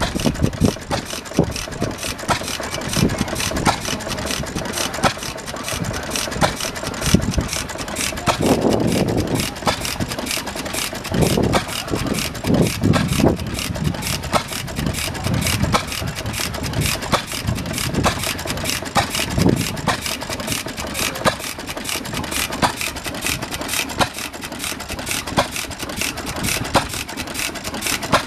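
Vintage stationary engines running, a continuous chain of short firing beats over a low rumble.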